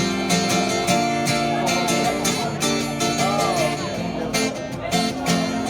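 Acoustic guitar strummed in a steady rhythm, chords ringing under each stroke.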